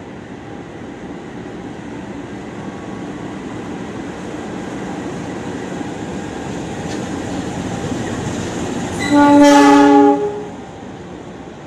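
KAI CC 206 diesel-electric locomotive running light past the platform, its engine and wheel noise growing louder as it nears, then one loud horn blast of about a second, about nine seconds in.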